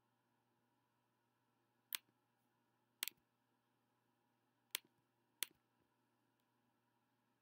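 Near silence broken by four short, sharp clicks: two about a second apart, then two more closer together a little later.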